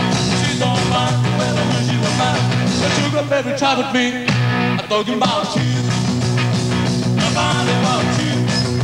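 Rock and roll band playing live: drums with cymbals, electric bass and electric guitar, with notes bending up and down in the middle and a brief drop in level about five seconds in.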